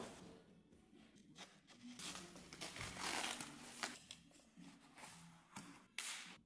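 Plastic bubble wrap and foam tube padding being handled and pulled off a bicycle frame: irregular crinkling and tearing, with a sharp click near the end.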